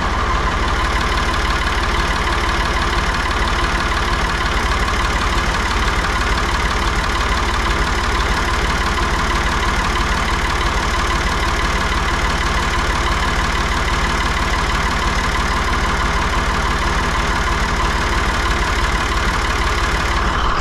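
Vehicle engine idling steadily while hooked up by jumper cables to charge a dead tractor battery.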